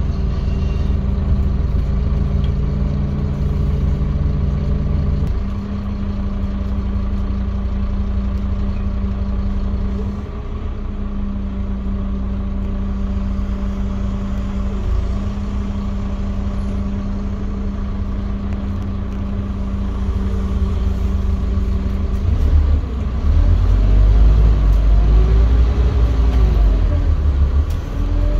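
Scania OmniCity bus engine heard from inside the passenger saloon, running under way with a steady drone whose pitch shifts a few times. In the last several seconds it gets louder, the pitch rising and falling as the bus accelerates.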